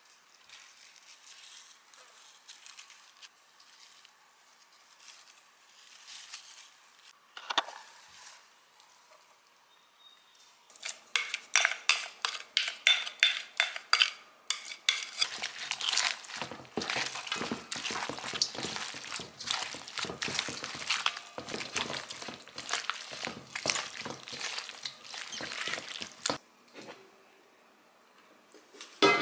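Kimchi chili paste being scraped into a stainless-steel mixing bowl of green onions and stirred through them. After about ten seconds of faint sound, there is a quick, dense run of scrapes, clicks and clinks of utensil and food against the bowls.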